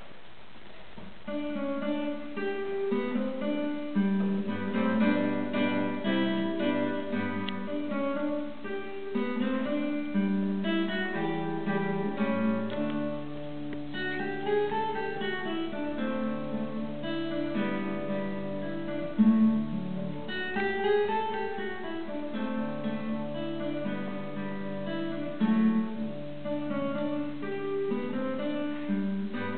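Solo classical guitar played with the fingers: a piece begins about a second in and runs on as a melody of plucked notes over a moving bass line.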